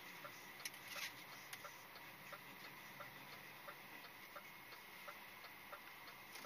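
Truck's turn-signal indicator ticking faintly and evenly in the cab, about three ticks a second, with a couple of sharper clicks about a second in.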